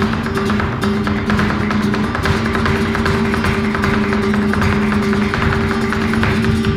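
Flamenco music led by a Spanish acoustic guitar, played with rapid strummed and plucked strokes over sustained notes.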